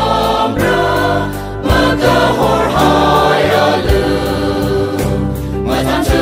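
A choir singing a hymn.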